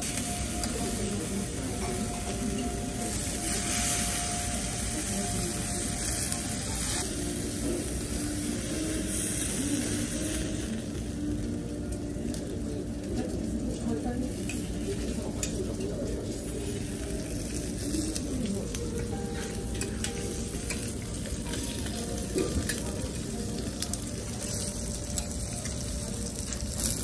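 Food sizzling on a hot teppanyaki steel griddle, the frying surging louder twice in the first half, with the click and scrape of spatulas on the plate.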